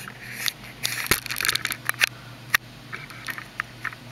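Handling noise from a handheld camera being moved: a run of irregular crackles and clicks, with one sharp click about two and a half seconds in.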